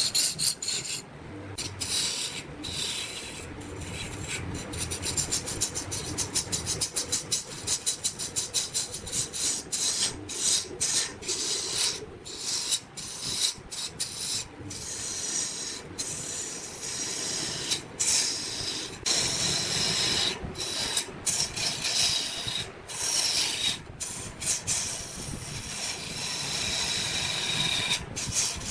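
Wood being cut or scraped on a lathe: a hissing, rasping scrape broken by many short gaps, with a fast, even chatter for a few seconds early on.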